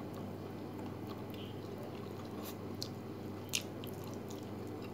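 A person biting and chewing fried chicken, with a few short sharp clicks, the loudest about three and a half seconds in, over a steady low hum.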